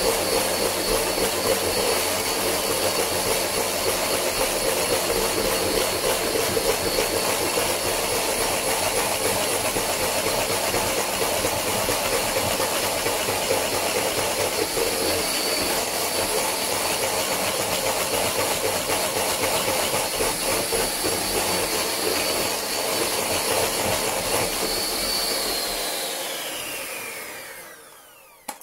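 Electric hand mixer running steadily at speed, its beaters whipping heavy cream to a firm consistency, with a steady high motor whine. Near the end it is switched off and the whine falls in pitch as the motor spins down.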